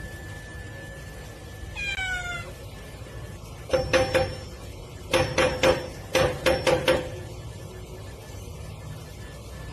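A domestic cat calling: one falling meow about two seconds in, then three quick runs of short, sharp calls, three or four in each run.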